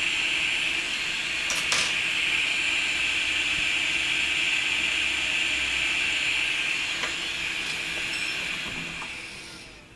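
Hot air rework station blowing a steady hiss, which dies away near the end. A faint tap from metal tweezers on the chip comes about a second and a half in.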